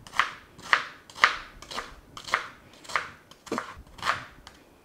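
Kitchen knife chopping an onion on a plastic cutting board: about eight cuts at roughly two a second, each ending in a sharp knock of the blade on the board.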